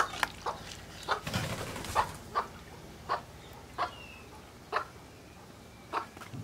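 Short, sharp animal calls, about a dozen, coming quickly at first and then further apart toward the end.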